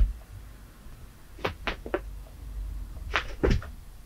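Cat playing on a carpet: a sharp knock right at the start as it pounces, then a quick group of three knocks about a second and a half in and two more near the end as its paws strike and scrabble.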